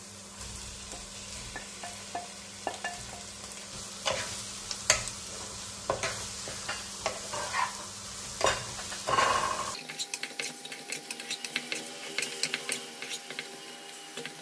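Fried chicken pieces being spooned from a glass bowl into a nonstick pan, with the spoon knocking and scraping. The pan is sizzling. About ten seconds in, a wooden spatula stirs the chicken into the sauce with a quick run of scraping clicks.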